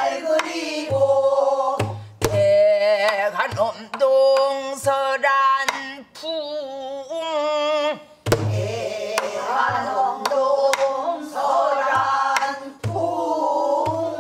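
Pansori singing with a wide, wavering vibrato, accompanied on a buk barrel drum: deep thumps on the drumhead and sharp clicks of the drumstick on the drum's body.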